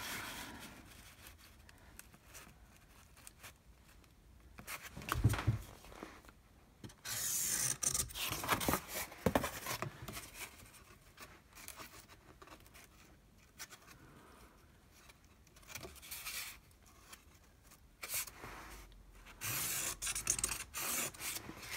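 Cardboard template sliding and rubbing over a galvanized steel sheet while a marker draws lines across the metal, in several short bouts with quiet gaps between.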